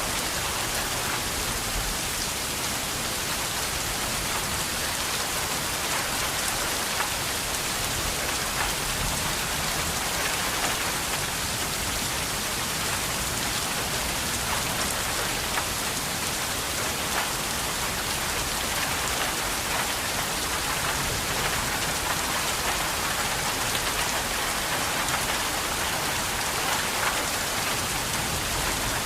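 Steady rain falling: an even hiss dotted with many individual drop hits, unchanging in strength throughout.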